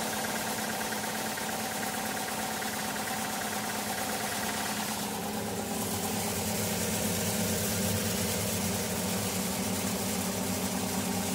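Small vibrating-screen grain cleaner running with a steady mechanical hum and rattle while malt shakes across its sieve and pours from the outlet in a continuous hiss. The hum changes pitch about halfway through.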